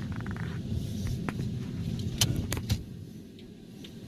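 Car interior road noise: a steady low rumble from the moving vehicle, with a few sharp clicks or knocks, the loudest two between two and three seconds in.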